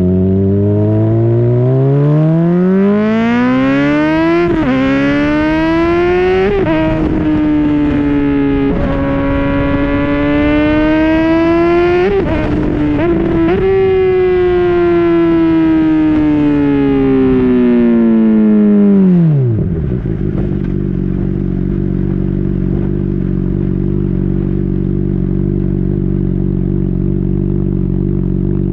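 2010 Honda CBR600RR inline-four engine through a Yoshimura slip-on exhaust, pulling hard with rising revs and quick upshifts about four and six seconds in, then holding high revs with another shift near the middle. About two-thirds of the way through the revs fall away sharply, and the engine settles to a steady idle.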